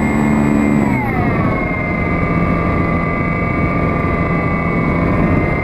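E-flite Apprentice's electric motor and propeller whining at flying speed, heard up close from on board with air rushing past. The whine drops in pitch about a second in, then holds steady.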